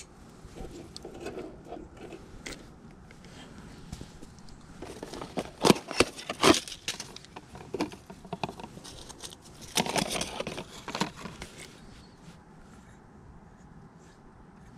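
Handling noise: scattered sharp clicks, scrapes and rustling, with two busier spells of clicking about five to seven seconds in and again around ten seconds in.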